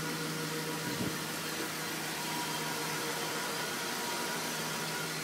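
Dodge Ram's 5.9-litre Magnum V8 idling steadily from the open engine bay, freshly tuned with new spark plugs, wires, distributor cap and rotor. It runs evenly without skipping a beat, a sign that the plug wires are on the right cylinders.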